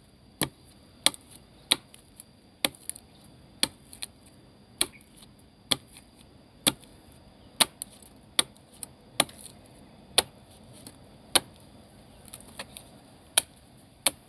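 Sharp chopping blows of a blade into the wood of an albizia tree trunk, struck at an uneven pace of about one a second, widening a hole to reach a wild bee nest inside.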